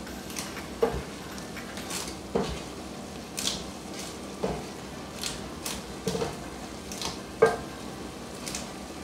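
A red plastic spatula stirring and tossing soft, cooked noodles in a nonstick pot: irregular light scrapes and knocks against the pot, about one a second.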